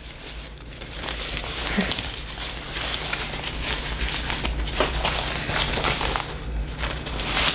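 Crinkling and crackling of a stiff, crumpled shell handled and pressed into shape with the hands, with many small crackles and a few sharper snaps.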